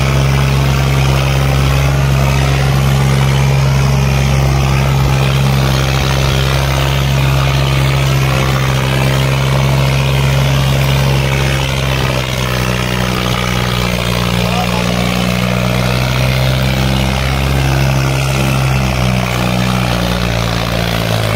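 Diesel tractor engine running steadily under load, hauling a loaded trolley, with a slight dip in level about halfway through.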